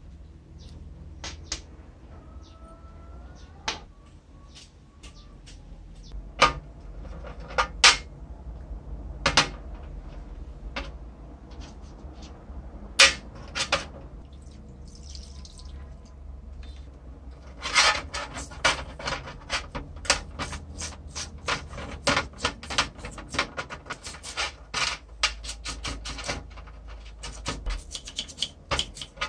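Small metal pencil-sharpener parts, the helical cutters and their frame, clicking and clinking as they are handled in a wet metal tray. A little past halfway, a toothbrush starts scrubbing the parts in quick, steady strokes.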